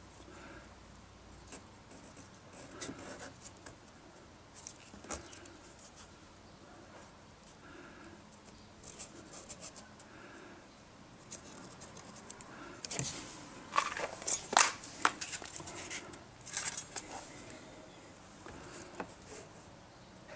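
A cardboard template being held, shifted against a plastic mud flap and marked with a paint marker: scattered scratches, rustles and small clicks, with the loudest run of scratchy strokes about two thirds of the way through.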